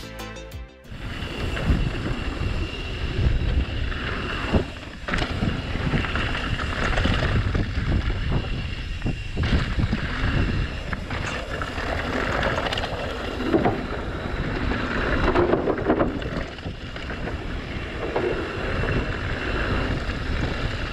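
Riding noise from a mountain bike descending a dusty dirt trail: wind buffeting the camera microphone with a low rumble, over the rolling rush of knobby tyres on loose dirt. Occasional sharp knocks and rattles come as the bike goes over bumps.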